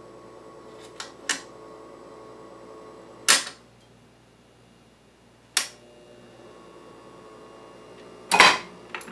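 The record changer mechanism of an Admiral 329 record player clicking and clunking as it is tried out, over a steady hum. There are several sharp clacks, the loudest about three seconds in and again near the end.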